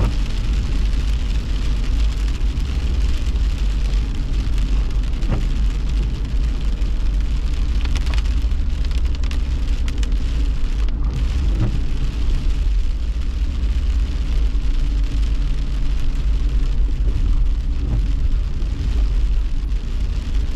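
Steady low rumble of a car driving on a wet road, heard from inside the cabin, with heavy rain hitting the windshield and roof.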